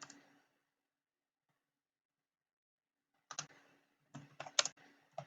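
Computer keyboard keystrokes: a couple of clicks at the start, a pause of about three seconds, then a short run of scattered keystrokes in the last two seconds.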